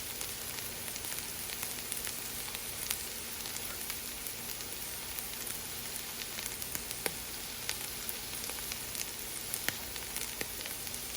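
Sirloin steak, potato and vegetable stir-fry sizzling steadily in a hot pan, with scattered small pops and crackles.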